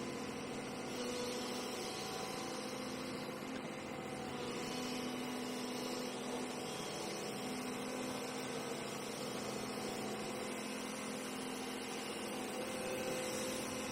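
Hyundai R220LC excavator's diesel engine running with a steady hum.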